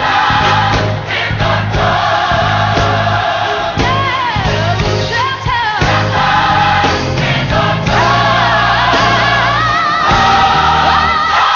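Gospel song with a choir and lead singer over a band with a steady bass line.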